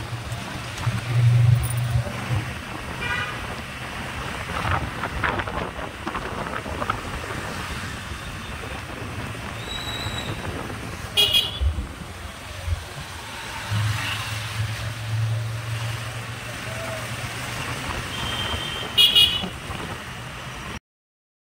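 Street traffic heard while riding on a two-wheeler: steady engine and road noise with short vehicle horn toots, the sharpest about 11 and 19 seconds in. The sound cuts off suddenly just before the end.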